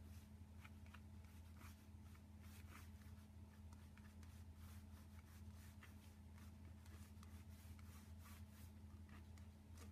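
Faint scratching and tapping of a Posca paint pen drawing short strokes on a painted journal page, over a low steady hum.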